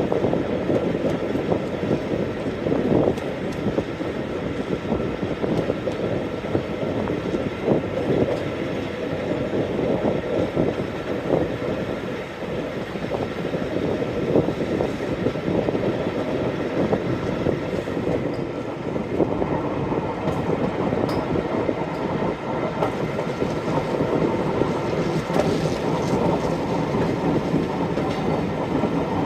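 Train hauled by Class 45 diesel 45108 running steadily along the line, a continuous rolling rumble with wheels clattering over the rails.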